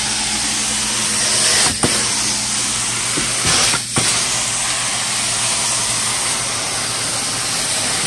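Truckmount carpet-cleaning wand working on carpet: a steady rush of vacuum suction and hissing spray of water hot enough to steam, with a low hum underneath. The sound dips briefly twice, about two seconds apart.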